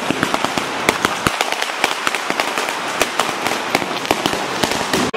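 Firecrackers exploding in a rapid, irregular run of sharp cracks, several a second, over a crackling hiss.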